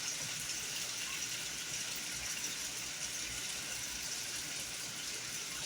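Chicken frying in hot oil, a steady even sizzle.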